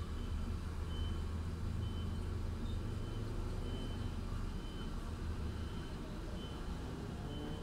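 Truck-and-trailer rig reversing: a reversing alarm gives a short high beep about once a second over the low rumble of the engine. The rumble eases off about halfway through.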